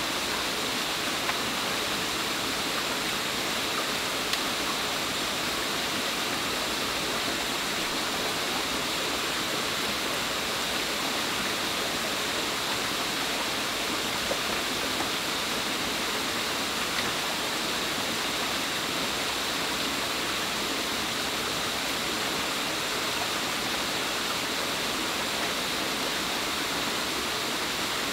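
Rocky forest stream rushing and splashing steadily, like a small waterfall, with a few faint knocks now and then.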